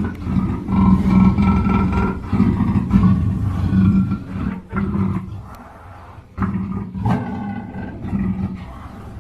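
Panther roaring and growling in long, rough bouts, a first one that fades about six seconds in and a second that starts sharply about half a second later.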